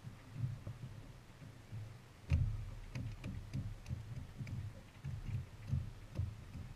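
Irregular dull thumps and a few light clicks of movement on a fishing boat's deck, the loudest about two seconds in.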